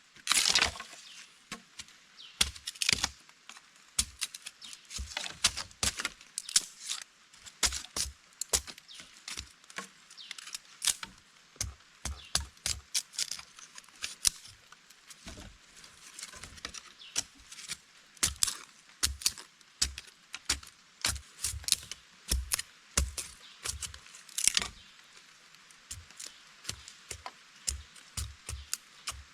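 An irregular series of sharp knocks and clicks, dozens of them at uneven intervals, from hand work with wood or camp tools.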